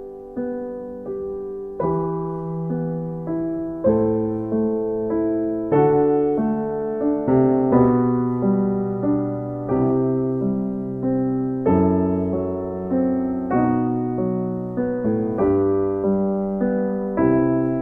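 Piano music: a steady run of notes and chords, each struck and then fading away.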